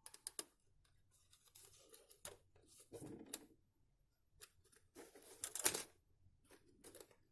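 Faint handling noise of small plastic parts: scattered clicks and short scrapes as a wire is pushed and fitted into a cheap power strip's plastic housing, the loudest scrape about five and a half seconds in.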